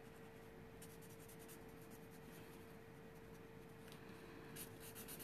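Faint strokes of a Copic alcohol marker on paper as an image is coloured in, growing a little busier near the end, over a steady faint hum.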